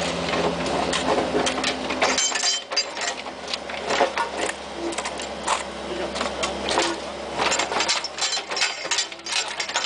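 Bobcat mini excavator's diesel engine running, with repeated sharp clanks and scrapes from the bucket working stony soil. The engine's low drone drops off about two seconds in.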